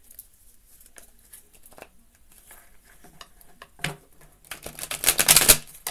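Tarot cards handled and shuffled: scattered light card clicks and rustles, a sharp tap, then a loud rapid flutter of cards for about a second near the end.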